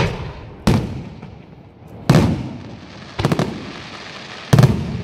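Aerial fireworks shells bursting overhead: a sharp bang at the start, another just under a second in, one about two seconds in, a quick cluster of cracks a little past three seconds, and the loudest bang near the end, each trailing off briefly.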